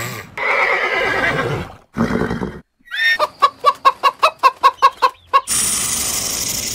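Chickens clucking in a rapid run of short clucks, about five a second, after a brief harsher animal call at the start. Just before the end it gives way to a steady hiss of a cobra hissing.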